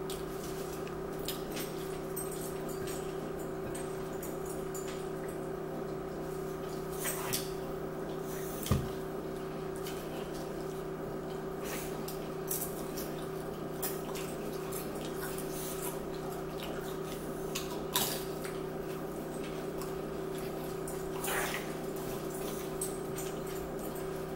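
Steady low hum under scattered soft clicks and taps from people eating at a table: plates, potato chips and chewing. A sharper knock comes about nine seconds in, and another just before eighteen seconds.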